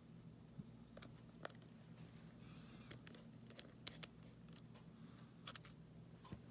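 Near silence: a faint steady low hum with a few faint, scattered clicks of a small tool working a tiny tri-point screw in an iPhone.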